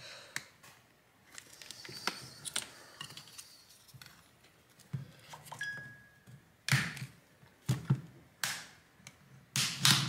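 Plastic back cover of a smartphone being prised off its frame by hand, making a run of irregular clicks, creaks and snaps as the clips let go. The snaps get louder and closer together in the second half.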